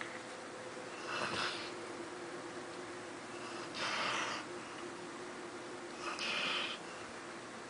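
Labrador retriever snoring in heavy sleep: three snores about two and a half seconds apart.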